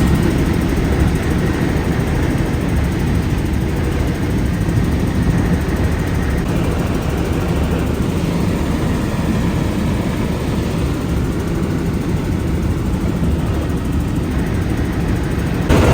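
Helicopter engine and rotor noise, a steady low rumble.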